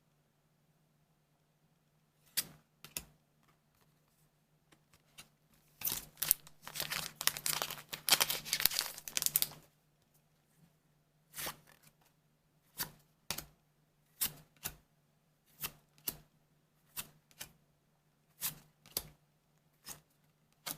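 A foil booster-pack wrapper is torn open and crinkled for a few seconds, then trading cards are slid off the stack one at a time, a short paired swish about every second and a half.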